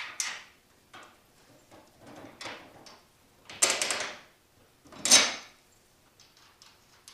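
Metal stunt-cage piece being handled and fitted onto the motorcycle frame: a series of separate scraping, sliding knocks, the loudest about five seconds in.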